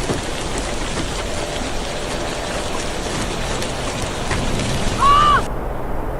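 Heavy rain falling, a steady hiss, with a brief loud pitched tone that rises and falls about five seconds in. Just after it the sound changes abruptly to a duller rumble.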